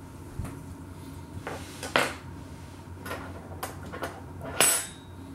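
Metal knife and fork clinking and tapping against a ceramic plate in a string of short sharp clicks. The two loudest come about two seconds in and near the end.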